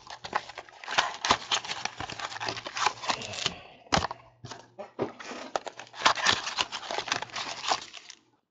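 Foil-wrapped trading-card packs crinkling and rattling as they are taken out of small cardboard boxes and stacked, with cardboard rubbing and light taps on a tabletop.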